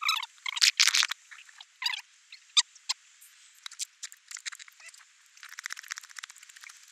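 Small hand pump pumping up a flat bicycle tyre: irregular hissing strokes of air and clicks from the pump, loudest in the first second, with a run of quicker, fainter strokes near the end.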